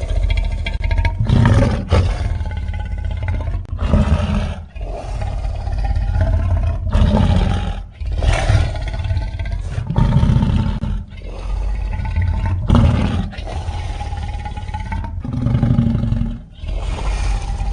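Designed monster sound effects for a giant piranha: a string of loud growling roars, a new one every second or two, each with a heavy rumble underneath.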